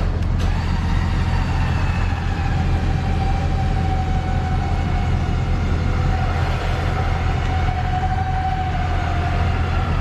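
Tow truck's engine and winch running under load during a vehicle recovery. A steady low drone with a whine over it that sags slightly in pitch toward the end.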